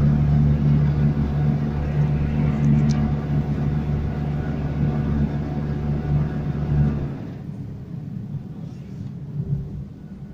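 Canal tour boat's engine running with a steady low drone, which drops away sharply about seven seconds in as the engine is throttled back.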